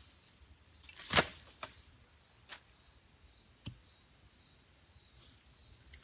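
A few sharp knocks of wood being worked, the loudest about a second in, over a steady high-pitched drone of rainforest insects.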